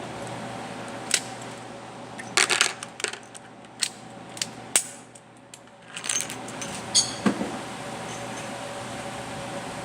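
A series of short, sharp metallic clicks and clinks, scattered irregularly over several seconds over a steady low hum.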